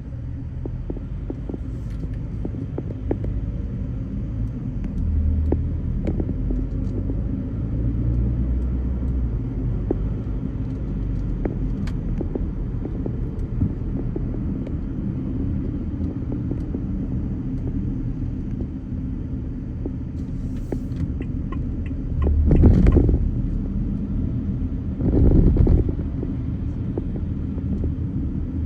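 Car driving: a steady low rumble of engine and road noise, with scattered small clicks and knocks. Two louder swells of rumble come about 22 and 25 seconds in.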